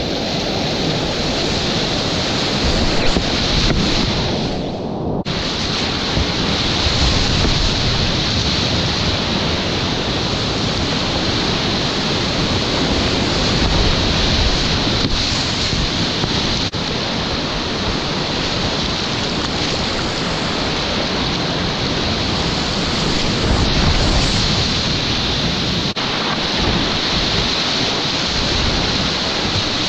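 Loud, steady rush of whitewater rapids heard from a kayak running them. The sound is muffled for about the first five seconds, then suddenly turns full and clear.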